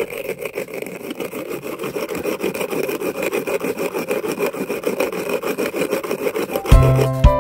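A brick scraped back and forth over another brick, grinding basket clam (shijimi) shells into powder for shell lime: a gritty rubbing in rapid, even strokes. Music comes in near the end.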